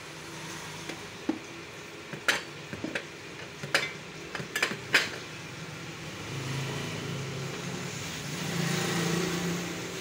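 Metal door handles clinking and knocking against each other and the shop's fittings as they are handled: a handful of sharp clinks, the loudest about five seconds in. Under them a steady hum that swells over the last few seconds.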